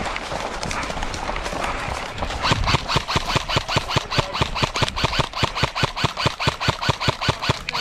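Running footsteps on the ground with the gear rattling, a quick even beat of about four to five steps a second that sets in about two and a half seconds in.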